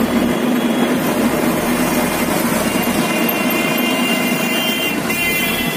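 A vehicle's engine and road noise heard while riding on a busy city road, a loud steady rush with a low hum; a few high thin tones come in about halfway through.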